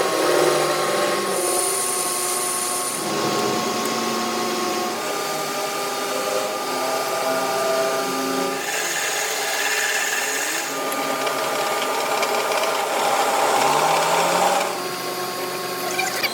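Power tool running on a metal part, with a steady machine hum and three louder stretches of harsh, scraping noise.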